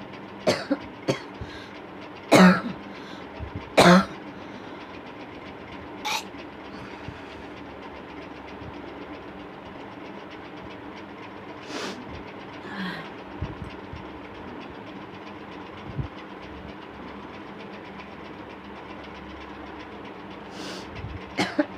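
A person coughing: a cluster of short, sharp coughs in the first six seconds, two of them loud, and a single cough near the middle, over the steady hum of an electric fan.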